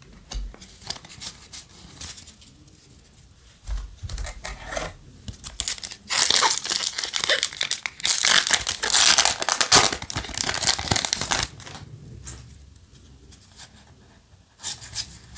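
A foil Yu-Gi-Oh! booster-pack wrapper being torn open and crinkled: a loud, dense crackling that starts about six seconds in and lasts about five seconds. Before and after it come lighter rustles and clicks of trading cards being handled.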